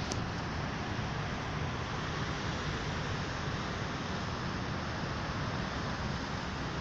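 Steady rumbling, rushing noise of a moving train heard from on board, with a single short click right at the start.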